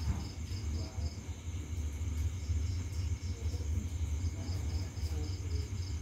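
A cricket chirping in runs of short, evenly spaced pulses, about four a second, with pauses between the runs, over a steady low rumble.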